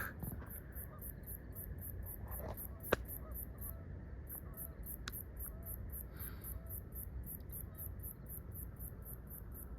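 Night insects chirping in a faint, very high-pitched, evenly pulsed trill, about four pulses a second, over a low rumble. A single sharp click comes about three seconds in.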